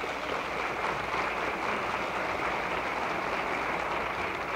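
Audience applauding, a dense steady clapping that swells up just before and holds.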